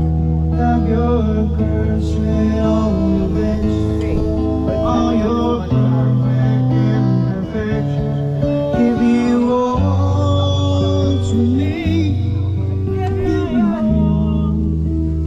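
A man singing to strummed acoustic guitar, with long held bass notes that change every few seconds underneath.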